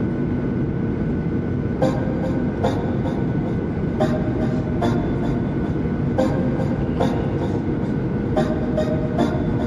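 Steady rumble of airliner cabin noise, with background music with a regular beat coming in about two seconds in.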